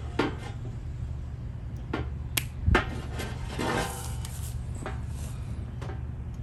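A handful of short, sharp clicks and some rustling as test leads and connectors are handled and plugged into a handheld solar panel multimeter, over a steady low rumble.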